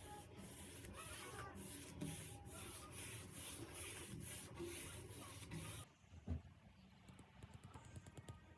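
Repeated rubbing or scraping strokes, about two a second, stopping about six seconds in, followed by a single knock and a few faint ticks.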